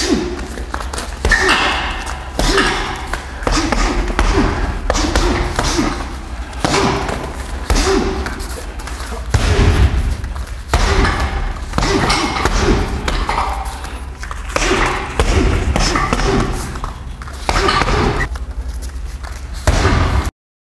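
Kicks, knees and gloved punches landing on a tall hanging heavy punching bag, a long run of heavy thuds and slaps coming in quick combinations with short pauses between them.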